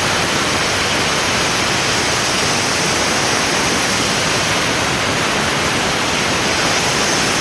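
Loud, steady hiss of a steam cleaner's jet blasting from its brass nozzle onto a motorcycle's plastic windscreen to lift off the protective film.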